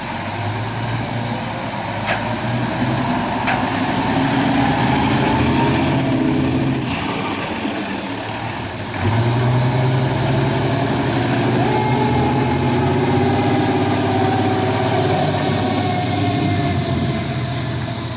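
Seagrave fire engine's diesel engine pulling away and accelerating, with a high whine that rises and then falls in pitch, heard twice. The sound jumps suddenly louder about halfway through.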